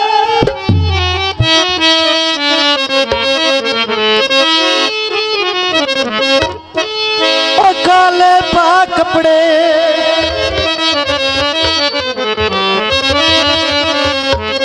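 Harmonium playing an instrumental melody in live Punjabi/Saraiki folk music, with hand-drum strokes underneath.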